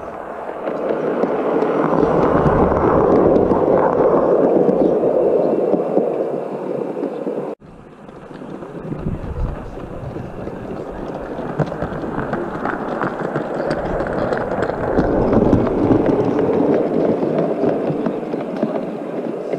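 Gauge 1 model trains running along the garden track past the microphone, their wheels running on the rails. The first train swells and fades, then cuts off abruptly about seven and a half seconds in. A second train then approaches, growing louder and peaking a few seconds before the end.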